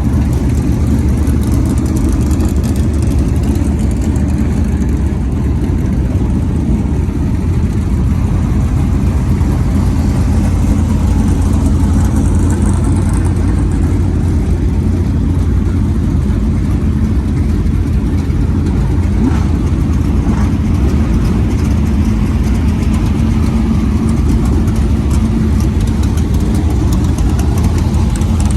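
Dirt Super Late Model race cars' V8 engines running loud and steady as they warm up before a feature race.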